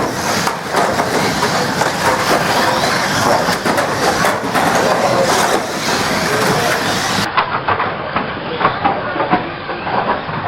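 Banger racing cars running on the track: a dense mix of engine noise with many short metallic knocks and crunches.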